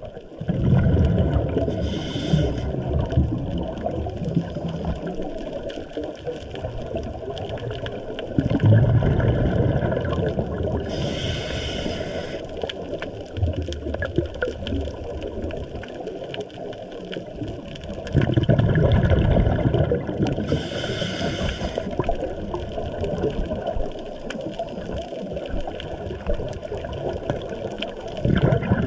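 Scuba regulator breathing heard underwater: the exhaled bubbles rumble in three long bursts about ten seconds apart, each with a short hiss of the regulator, over a steady wash of water.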